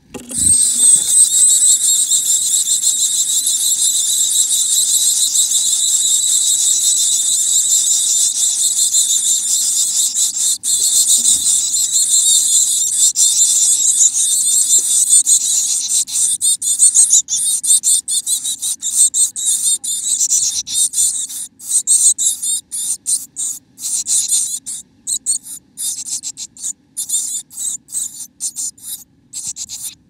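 Chickadee nestlings begging inside the nest box: a loud, high-pitched hissing chorus that starts suddenly. It runs unbroken for about the first half, then breaks up into rapid stuttering bursts.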